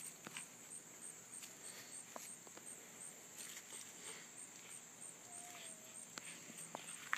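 Faint rustling and soft clicks of leaves and plant stems as a puppy noses and digs through a garden bed, over a steady high chirping of insects repeating about three times a second.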